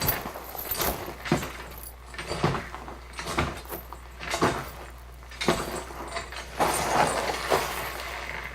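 Foley sound effects performed with props: irregular knocks and clatters about once a second, with a longer rustling, scraping stretch around seven seconds in.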